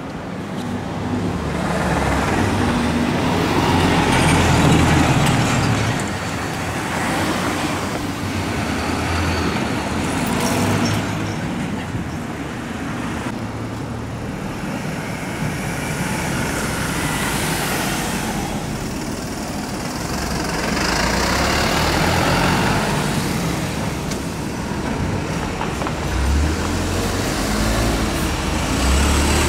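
Road traffic: a steady rumble of passing vehicles that swells and fades several times as cars and trucks go by.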